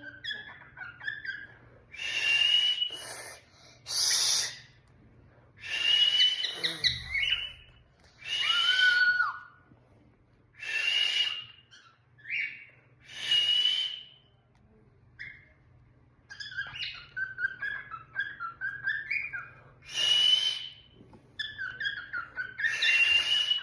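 Cockatiel giving loud, harsh contact calls, each about a second long and coming every couple of seconds. Between them it makes runs of soft, quick chirping chatter, longest in the second half.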